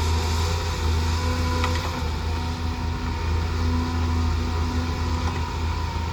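Heavy excavator's diesel engine running steadily, a low hum with a faint steady whine above it and a light click about two seconds in.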